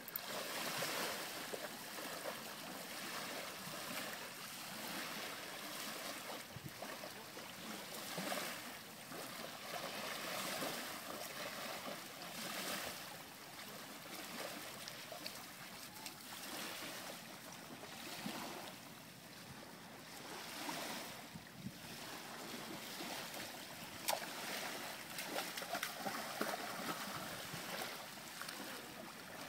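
Small waves lapping and washing at the water's edge, a noisy wash that swells and fades every few seconds, with the splashing of a Boerboel wading through the shallows. One sharp click sounds near the end.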